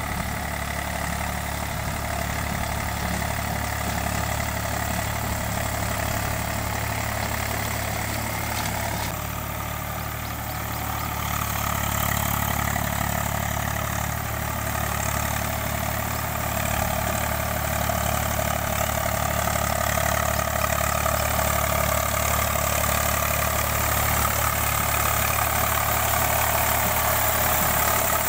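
Eicher 485 tractor's diesel engine running steadily under load while driving a rotavator through a flooded paddy field, puddling the soil for rice planting.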